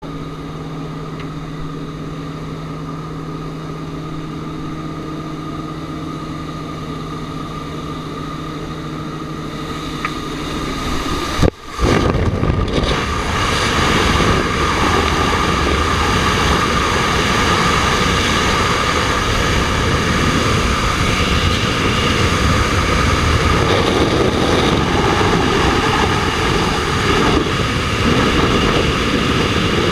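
Steady aircraft engine drone inside a jump plane's cabin, then, about eleven and a half seconds in, a brief drop-out and the loud, even rush of freefall wind across the camera's microphone.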